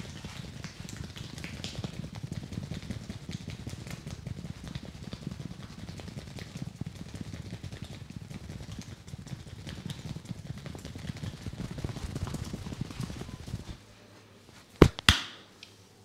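Head massage: fingers rubbing and kneading through damp hair against the scalp, a fast dense scrubbing that stops about two seconds before the end. Then two loud sharp snaps follow close together.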